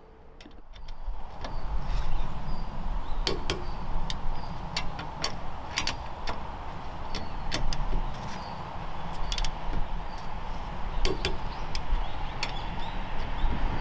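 Click-type torque wrench tightening wheel lug nuts to about 108 N·m, giving repeated sharp clicks at uneven intervals as each nut reaches its set torque, over a steady low rumble.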